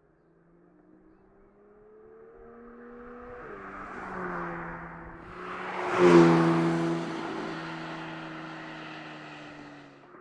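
Porsche 911 GT3 Touring's flat-six engine and exhaust accelerating: the revs climb, drop with an upshift about three and a half seconds in, climb again to the loudest point about six seconds in, then the pitch and level fall away slowly.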